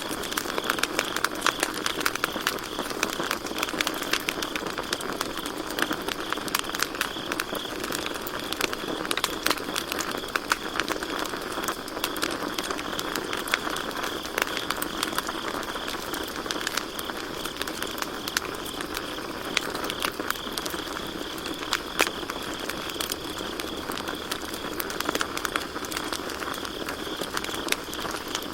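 Campfire crackling and popping continuously, with a steady high chirring of crickets behind it.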